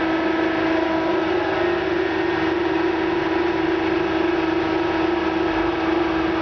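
CNC press brake running at rest between bends, a steady hum with one strong constant mid-pitched tone.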